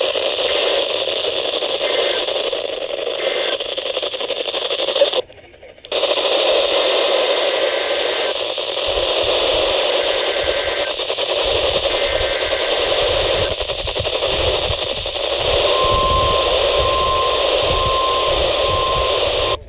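Weak NOAA Weather Radio reception, a steady static hiss with faint tones buried in it. The signal drops out for about half a second around five seconds in, and four short evenly spaced beeps sound near the end.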